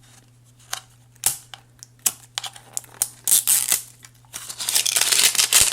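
Plastic packaging crinkling and being torn open by hand: scattered sharp crackles, then a longer, denser stretch of tearing and crinkling near the end.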